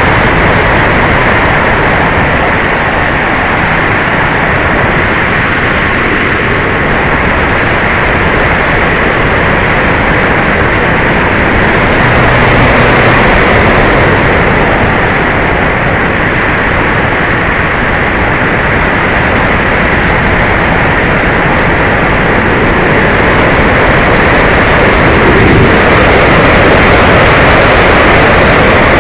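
E-Flite Apprentice's electric motor and propeller running steadily in flight, with wind rushing over the airframe. The noise is loud and steady with a thin whine, swelling slightly louder now and then as the throttle or airspeed changes.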